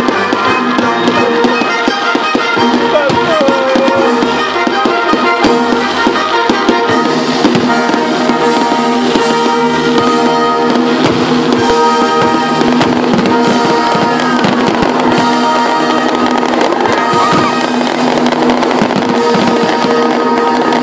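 A live band playing music with long held notes, while fireworks go off overhead with many short bangs and crackles over the music.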